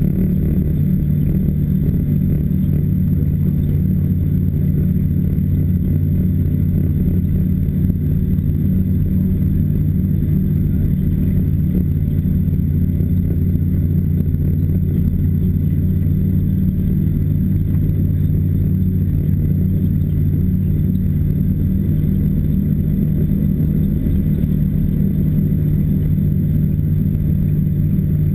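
Engine of a small off-road machine running steadily at cruising speed, a low even drone that holds the same pitch throughout as it travels a snow trail.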